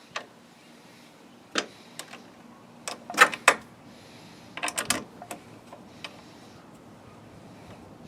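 Scattered sharp clicks and clacks of a wrench turning the bar-mounting nuts on a chainsaw's side cover, the loudest a pair of clacks about three seconds in and another cluster near five seconds.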